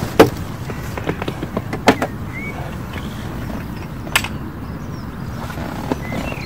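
A few sharp clicks and knocks from a plastic tackle box and fishing tackle being handled, over a steady background rush.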